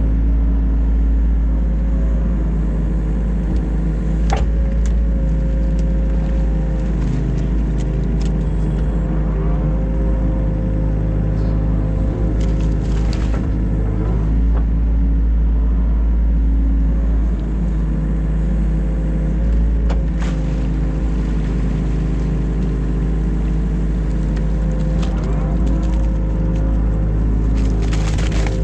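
Diesel engine of a New Holland Kobelco E50.2 mini excavator running steadily while digging, its pitch shifting slightly now and then. A few sharp knocks are scattered through.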